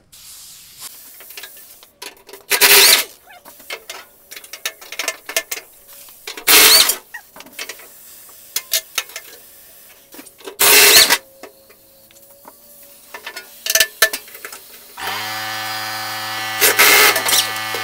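Air impact wrench with a 3/4 socket loosening the spindle hub's mounting bolts on a Swisher 44-inch rough cut mower deck: short bursts of hammering about two and a half, six and a half and eleven seconds in, with small metal clicks and clinks between. Near the end it runs for a few seconds with a steady hum, with one more loud burst just before it stops.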